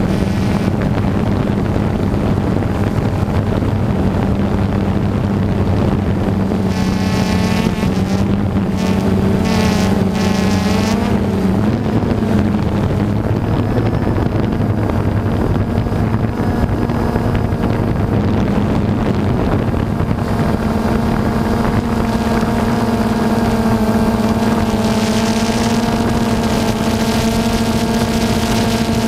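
Quadcopter drone's motors and propellers buzzing steadily, recorded close up by the camera the drone carries. The pitch wavers as it manoeuvres about a third of the way in and steps up slightly about two-thirds of the way through.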